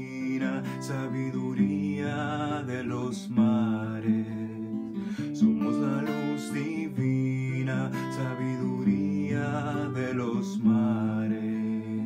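Acoustic guitar strummed in a steady rhythm while a man sings long, wavering held notes over it.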